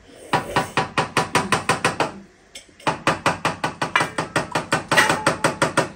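A buffalo leg bone rapped quickly and repeatedly on a steel plate, about six knocks a second with the plate ringing, to shake the marrow loose. It comes in two runs, with a short pause a little over two seconds in.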